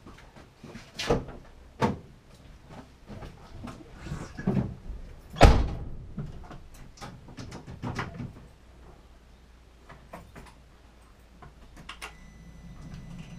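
Car door of a 2004 Vauxhall Corsa C opened and shut with a sharp thud about five and a half seconds in, among knocks and clicks as someone climbs into the driver's seat. Near the end a faint steady hum with a thin whine comes on.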